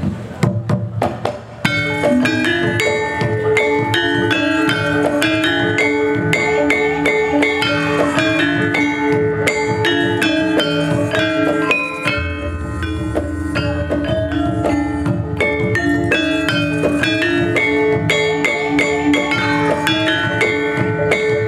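Javanese gamelan ensemble playing: bronze-keyed saron and bonang struck with mallets in a running pattern over hand drums. A few opening strokes sound first, then the full ensemble comes in about two seconds in.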